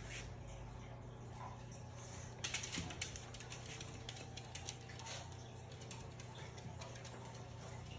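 A small dog's claws clicking on a hardwood floor as it moves about: a quick flurry of clicks about two and a half seconds in, then scattered taps, over a low steady hum.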